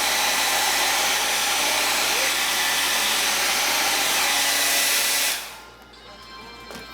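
Revlon hair dryer blowing steadily while drying long hair, then switched off about five seconds in, its rush dying away quickly.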